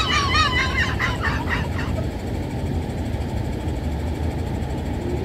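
Steady low rumble of truck engines and road traffic. For the first two seconds a person's high-pitched wavering voice sounds over it.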